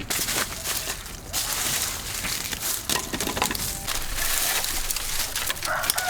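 Irregular rustling and crunching with many small clicks, as of something being handled or crushed.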